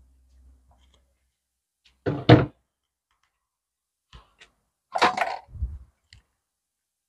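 A few knocks and thuds: a sharp double thump about two seconds in, two light clicks near four seconds, and a louder knock followed by a low thud around five seconds.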